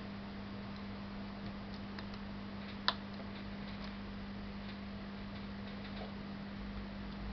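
Hot-air rework station blowing steadily onto a phone circuit board, a constant hum over an even hiss. There are a few faint ticks and one sharp click about three seconds in.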